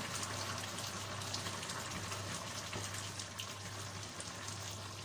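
Chicken and potato stew simmering in a metal pan, a steady crackling bubble, as a wooden spoon stirs through it.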